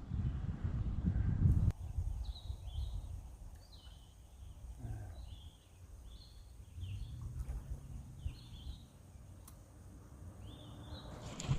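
A songbird calling a series of about a dozen short, high chirps. A low rumble on the microphone comes first and stops suddenly after about a second and a half.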